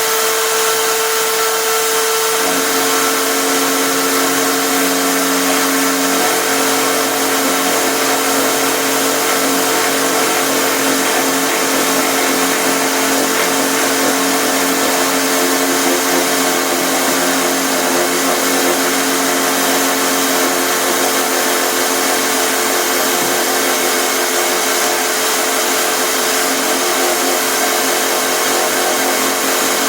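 Electric drill mounted as a router in a homemade router table, running at full throttle with a steady high whine. About two and a half seconds in a lower tone joins as the bit cuts along the wooden edge, rounding it over.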